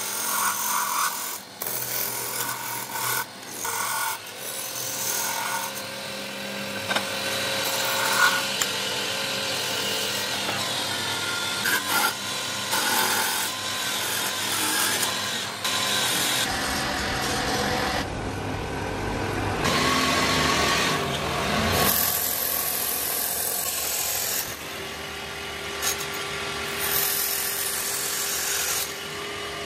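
Hand-held turning chisel cutting and scraping a spinning wooden disc on a belt-driven lathe. A rough, continuous shaving noise swells and eases as the tool bites and is moved across the face, over a steady hum from the lathe drive.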